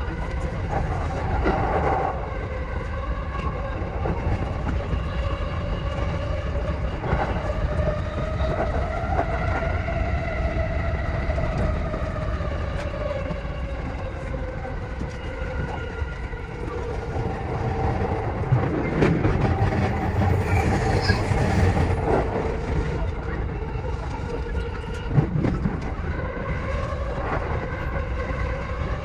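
E233 series electric train running on the Chuo Line: a whine that slowly rises and falls in pitch over the rumble of the wheels on the rails, with scattered clicks from the track.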